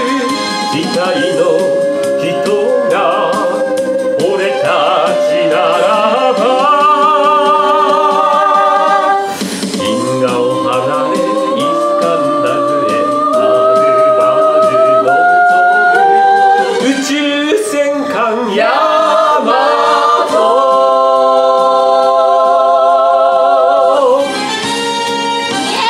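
Recorded song played back: several voices singing together in harmony, holding long notes with vibrato. The level dips briefly about nine seconds in and drops again near the end.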